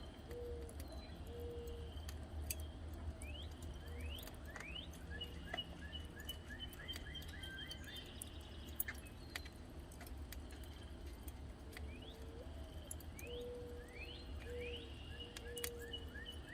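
Birds calling and singing: repeated short rising chirps and trilled notes, with some short low whistled notes, over a steady low hum.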